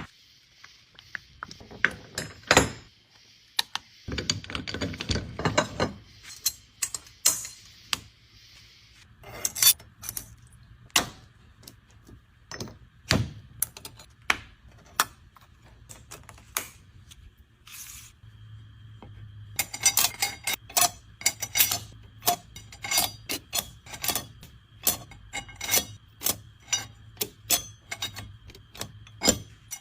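Metal hand tools and parts clinking and tapping against each other in scattered sharp knocks, coming thick and fast in the last third, over a faint steady hum.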